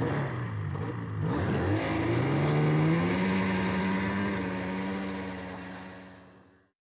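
Snowmobile engine revving up, its pitch rising over about a second, then holding a steady high note before fading out near the end.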